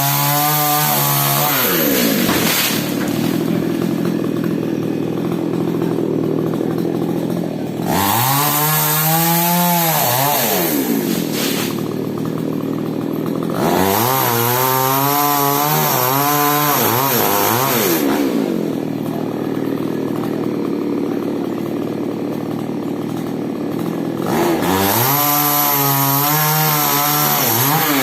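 Falcon mini two-stroke chainsaw cutting mango wood. The engine speed drops and climbs again four times, with stretches of steady cutting in between.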